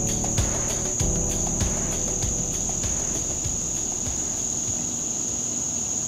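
Steady high-pitched drone of a cicada chorus, with background music and its beat fading out over the first half.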